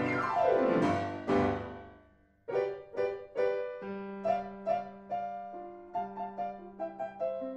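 Piano music: a fast downward run fades away, and after a brief pause a passage of quick, short notes plays over a held low note.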